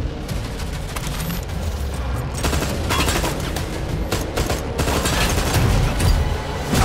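Rapid automatic rifle fire, shot after shot in quick succession, in a film action sound mix with score music underneath.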